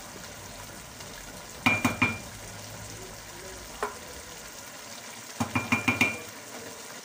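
Wooden spatula stirring rice in a metal pot, knocking against the pot with short ringing clinks: a quick cluster about two seconds in, a single knock in the middle and another cluster near the end. Under the knocks is a steady low sizzle from the rice, whose cooking water has nearly boiled off.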